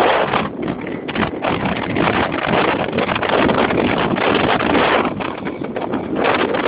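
Wind buffeting the microphone of a Romet 727 Eco scooter under way, with the scooter's engine running beneath the rushing noise. The noise surges and dips unevenly, with brief dropouts about half a second and a second and a half in.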